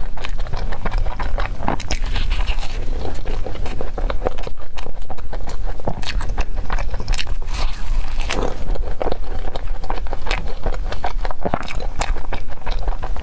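Close-miked biting and chewing of cream-filled choux puffs with a crisp crumb topping: a run of small crunchy clicks as the shells are bitten and chewed.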